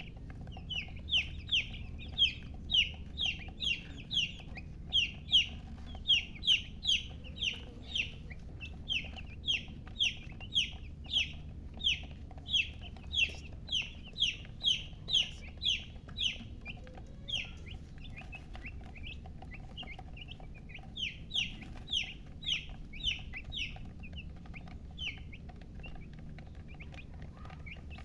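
Baby chicks peeping: a steady run of short, high, downward-sliding peeps, about two or three a second, that thin out for a few seconds past the middle and then pick up again.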